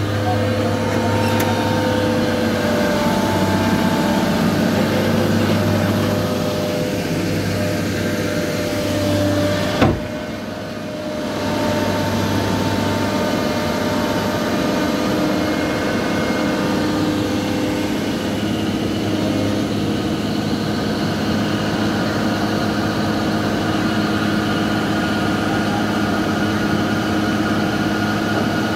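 Diesel engine of a JCB tracked excavator running steadily as the machine is driven off a lowbed trailer, its pitch shifting a little now and then. There is a single sharp click about ten seconds in.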